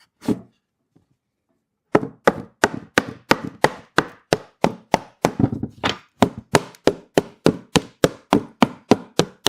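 Dovetail joints of a cedar wood beehive box being tapped together: one knock just after the start, then from about two seconds in a steady run of sharp wooden taps, about three a second.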